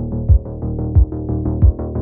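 Electronic background music: quick synthesizer notes over a kick drum beating about every two-thirds of a second.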